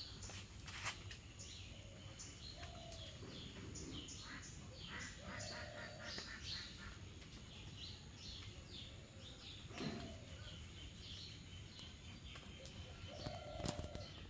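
Birds chirping in many short, high calls, with a lower call now and then and a few soft knocks.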